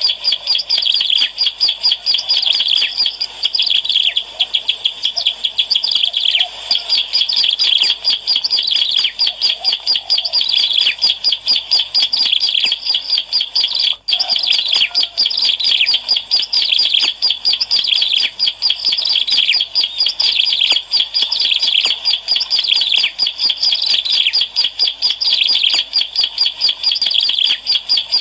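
Ciblek alang-alang, a prinia, singing non-stop as a lure recording: a fast, unbroken chatter of high chirps. There is one brief gap about halfway.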